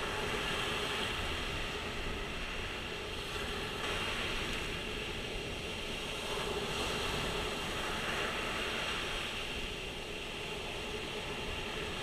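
Sea surf: waves breaking and washing up over the sand at the water's edge, a steady rush that swells and eases a little.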